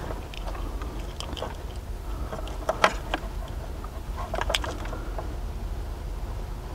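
Plastic wiring-harness connectors and loose wires being handled and plugged together: scattered light clicks and rustling, the sharpest click about three seconds in, over a steady low hum.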